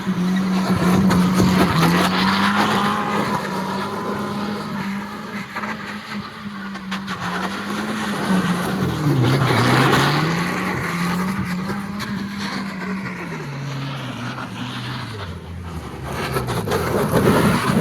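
Car engine revving up and down repeatedly, with heavy tire and road noise.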